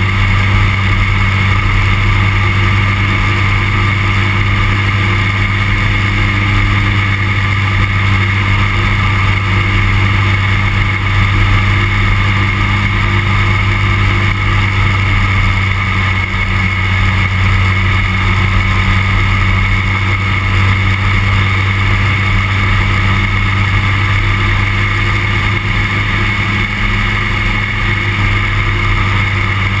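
Engine and propeller of a weight-shift microlight trike in cruise flight, a loud steady drone that holds the same pitch throughout.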